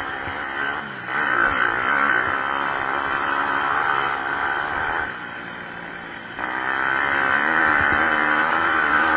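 Pit bike engines revving hard during a motocross race, rising and falling in pitch as the bikes work the track. The sound drops away about five seconds in and picks up again a second or so later.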